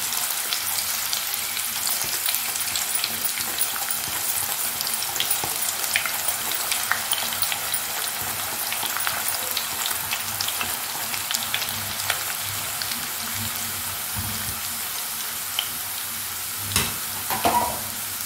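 Raw banana slices frying in hot oil in a steel kadhai: a steady sizzle full of small crackles. One brief knock sounds near the end.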